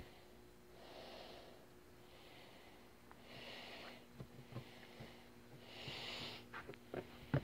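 Faint breathing close to the microphone, a soft in-and-out breath about every second, over a steady low hum. A few light knocks and handling clicks come near the end.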